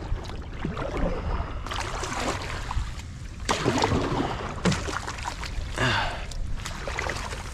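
Kayak paddle strokes through shallow marsh water and mats of dead floating vegetation, with splashing, dripping and the hull brushing through the debris, several strokes a few seconds apart.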